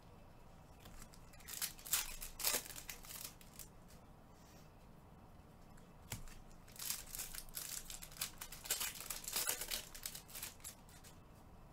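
Trading card pack wrappers being torn open and crinkled, in two spells of sharp rustling: a short one about two seconds in and a longer one from about six and a half seconds in.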